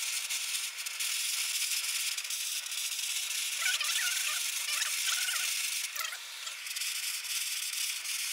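Handheld butane torch on a gas canister hissing steadily as its flame heats a bamboo rod. A few wavering chirps sound in the middle.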